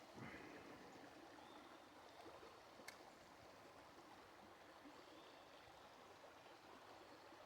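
Faint, steady rush of a flowing trout stream, with one small click about three seconds in.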